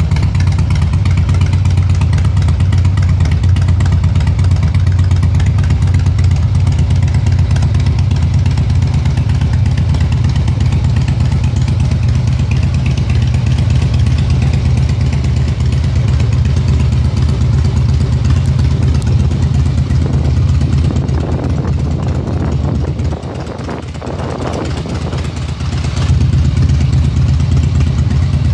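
Harley-Davidson FXSB Breakout's air-cooled V-twin idling steadily through its exhaust, with a loping, even beat. It runs a little quieter for a couple of seconds about 23 seconds in, then comes back up.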